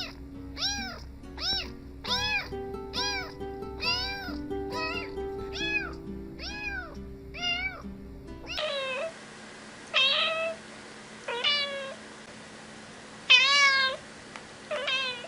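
Cats meowing: a quick, even run of rising-and-falling meows over background music, then after a cut, five separate meows without music, the loudest near the end.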